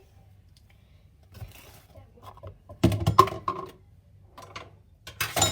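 Spoon knocking and scraping against a mixing bowl while pancake batter is stirred, in a cluster of knocks about three seconds in and again near the end.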